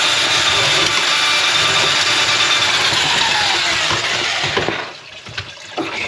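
A drain-cleaning machine's motor running steadily with a high whine, then switched off about four seconds in. It winds down with a falling pitch and stops, followed by a few knocks.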